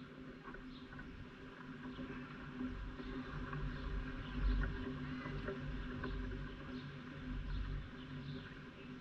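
Low hum of an engine, swelling to its loudest about halfway through and then easing off, with faint bird chirps over it.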